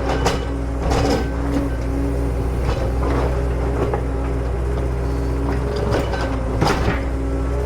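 Excavator's diesel engine running steadily, with scattered metallic clanks and knocks from the machine at work.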